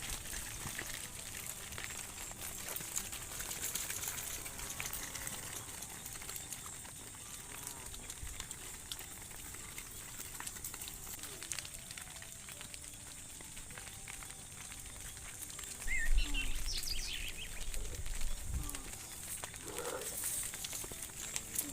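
Outdoor ambience of cattle being led through a muddy field: a steady background hiss with scattered small rustles and clicks, and a brief low rumble about three-quarters of the way through.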